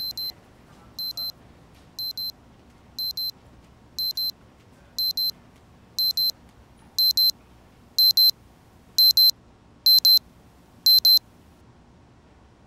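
Electronic pager beeping: a quick double beep about once a second, growing steadily louder, until it stops near the end.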